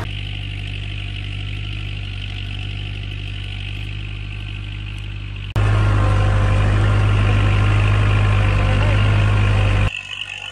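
Kubota MU4501 tractor's diesel engine running steadily under load while pulling a plough. About halfway it becomes much louder and closer, as heard from the driver's seat, then drops back suddenly near the end.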